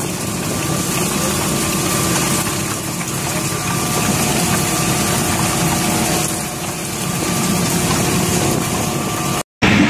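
Fishing-boat deck machinery running with a steady hum over an even rushing noise. The sound drops out for an instant near the end.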